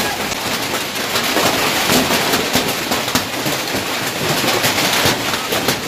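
Heavy hailstorm: a dense, steady clatter of many hailstones striking the ground and nearby surfaces, with the hiss of rain.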